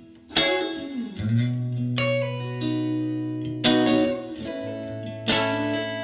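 Intro music: effects-laden guitar chords struck about every one and a half seconds and left to ring, over a low held note.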